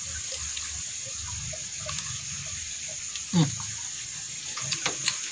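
Steady outdoor background of running water with a constant high insect drone. About three and a half seconds in there is a short falling vocal 'mm', and near the end a few small clicks from eating with the hands and chewing.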